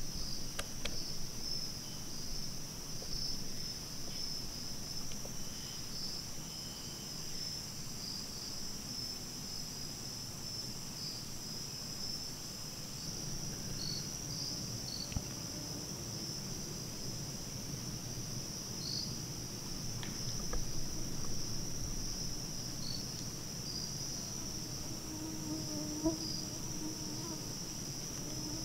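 Evening insect chorus in hardwood bottomland woods: a steady, high-pitched trilling that never lets up, with a couple of faint ticks.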